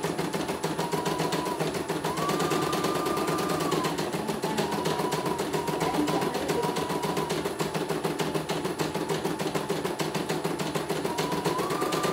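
CNY E900 computerised embroidery machine stitching a design: a rapid, even clatter of needle strokes, with a motor whine that comes and goes, rising and falling in pitch.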